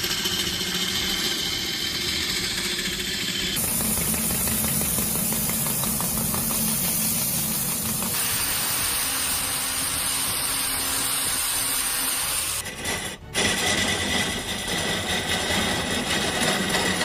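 Large wood lathe turning wood, a cutting tool shaving the spinning piece with a steady, noisy cutting sound. The sound changes abruptly several times, with a brief drop about thirteen seconds in.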